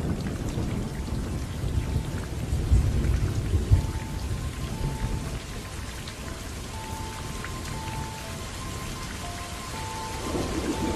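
Thunder rumbling over steady rain, the rumble loudest around three to four seconds in and easing off afterwards.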